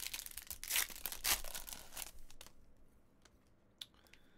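Foil wrapper of a baseball card pack being torn open and crinkled, in crackly bursts over the first two seconds or so. The sound then drops to faint rustling as the cards are handled, with a single click near the end.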